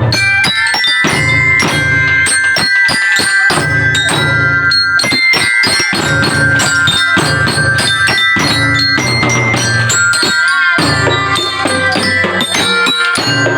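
Children's drum band playing a tune: drums beating a steady rhythm under bright struck bell-lyre notes and held melody tones.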